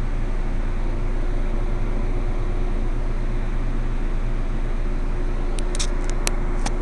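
Steady hum and hiss, with a few light clicks near the end.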